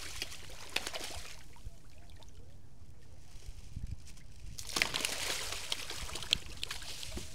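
Farmed groupers splashing and thrashing at the water surface as they snatch small baitfish thrown into their pen. There is a burst of splashing in the first second and a half, a quieter stretch, then another burst from about five seconds in.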